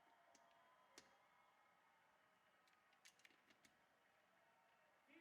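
Near silence with room tone, broken by a few faint, sharp clicks: one about a second in and a small cluster around three seconds in.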